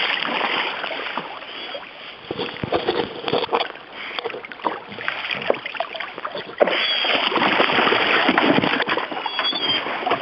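Splashing in shallow river water as a Cesky Fousek dog retrieves a shot duck to a canoe, mixed with knocks and rustles of handling in the canoe. It gets louder suddenly about two-thirds of the way through.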